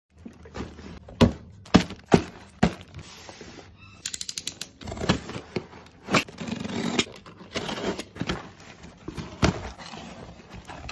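Hands opening a cardboard shipping box: a few sharp taps in the first three seconds, a quick run of clicks about four seconds in, then cardboard scraping and rustling with knocks as the plastic bottles inside are handled.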